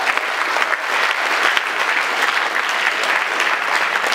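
Audience applauding: steady clapping from a crowd of many hands.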